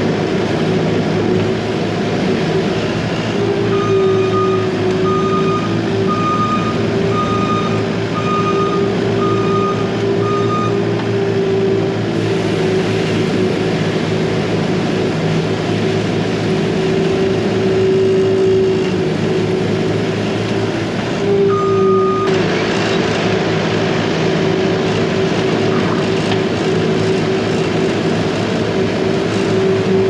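Skid steer loader running steadily, heard from inside its cab. Its reversing alarm beeps about eight times, roughly once a second, starting a few seconds in, and once more about two-thirds of the way through.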